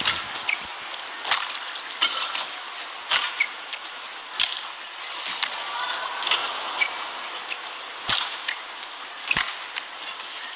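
Badminton rally: rackets hitting the shuttlecock in sharp cracks about once a second, with short sneaker squeaks on the court floor. Steady arena crowd noise runs underneath and swells a little midway as a point is won.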